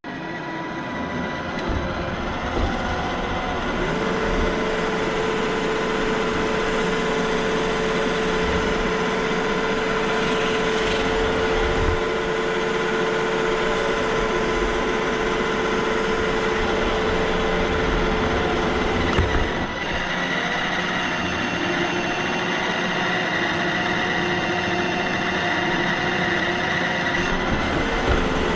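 iRobot Roomba i7 robot vacuum running, heard from a camera mounted on top of it: a steady whir of its vacuum motor and brushes with a high whine. The whine shifts in pitch a few times, about 4 seconds in, around 20 seconds and near the end.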